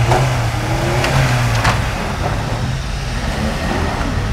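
A front-wheel-drive Kia Soul's petrol engine runs hard and steadily under load as the car climbs an off-road slope, with a few short clicks.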